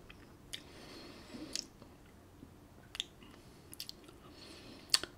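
Mouth sounds of someone tasting whisky: a handful of wet lip smacks and tongue clicks spread over the few seconds, the loudest near the end, with quiet breaths between.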